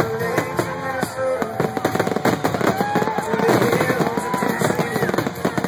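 Aerial fireworks shells bursting in rapid succession: a dense barrage of bangs and crackles.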